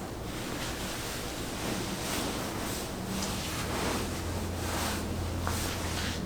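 Steady rustling and rubbing as hands work over the body and clothing during a chiropractic massage, with a faint click about five and a half seconds in.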